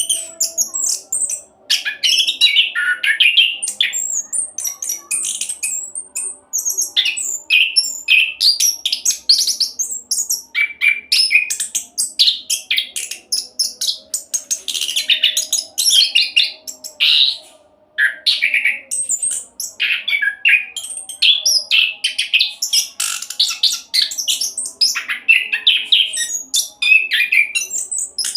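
Chestnut-capped thrush (anis kembang) singing a fast, almost unbroken rolling song of rapid, varied chirps and trills, with only a few brief pauses.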